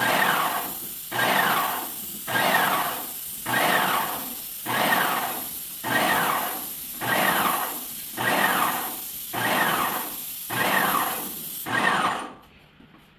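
Graco X5 airless paint sprayer spraying paint through its gun: a steady hiss with a regular surge about once a second. It stops about twelve seconds in as the trigger is released.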